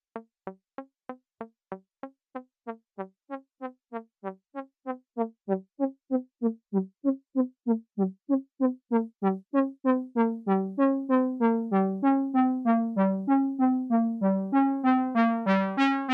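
Behringer Crave semi-modular analog synthesizer playing a repeating sequenced pattern of short low notes, about three or four a second, one note at a time. About five seconds in the notes get louder, then ring longer until they run into one another, and near the end the tone turns much brighter.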